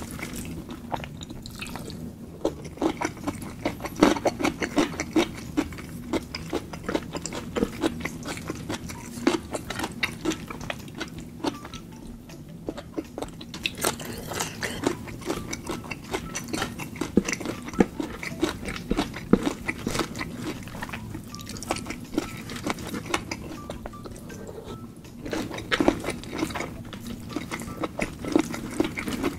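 Close-miked eating: wet, irregular chewing and lip smacks on mouthfuls of rice and seafood in sauce. Fingers squish and scoop through the saucy food between bites.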